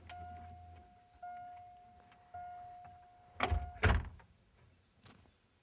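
A parked car's engine cutting off, then its steady electronic warning chime sounding in long tones, cut short by two car doors slamming shut about half a second apart.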